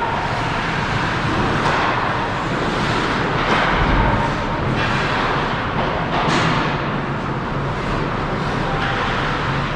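Ice hockey rink noise during play: a steady rush of skates on ice, with a few sharp knocks of sticks, puck or boards scattered through it.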